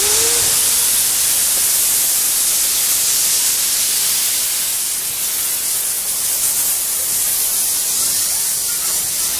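Loud steady hiss of steam escaping from a JNR Class C12 tank locomotive standing at the platform, easing a little after about five seconds.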